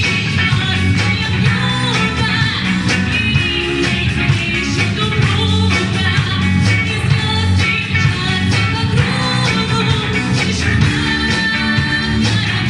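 Rock-style music with guitar and a steady drumbeat.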